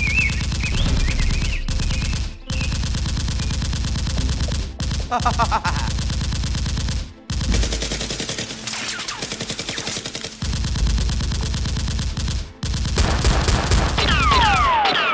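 Rapid automatic gunfire in long bursts, with short breaks every two to five seconds.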